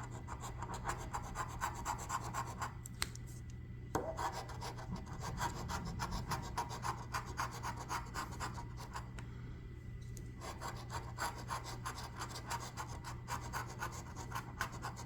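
A coin scratching the coating off a scratch-off lottery ticket in fast back-and-forth strokes. The strokes come in runs of several seconds, with short pauses about three seconds in and again around ten seconds.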